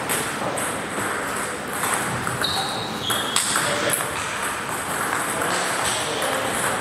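Table tennis rally: the celluloid ball clicking off the bats and the table in a quick back-and-forth, with a pair of short high squeaks about halfway through.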